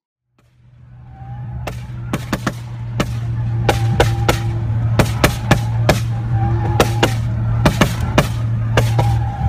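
Car engine held at steady high revs while the car slides sideways, with a rapid, irregular string of sharp pops and cracks over the drone.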